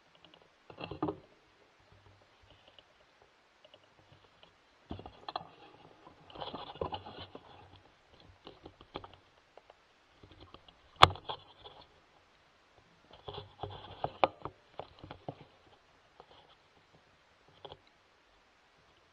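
Scattered rustling and small clicks of handling noise on a rifle-mounted thermal scope's built-in microphone, with one sharp, loud click about eleven seconds in.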